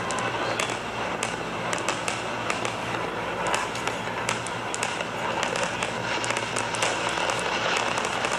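Fireworks crackling: a dense, irregular run of small sharp pops over a steady rush, from the audio of an online fireworks broadcast.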